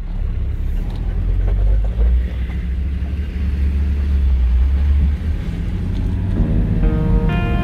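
Steady low rumble of a vehicle driving on a gravel road, heard from inside the cabin. Music comes in about six and a half seconds in.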